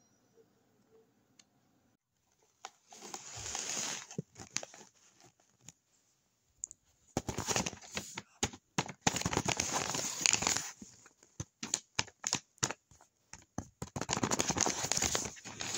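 Paper crinkling and rustling as a handmade paper blind bag and a crumpled paper sheet are handled. It comes in three bouts, with single light clicks in between.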